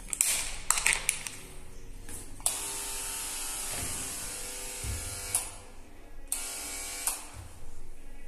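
Close handling noise from the phone: rubbing and scraping against its microphone, with a few clicks in the first second and two long stretches of loud hiss. Faint disco music from the neighbours' flat below runs underneath.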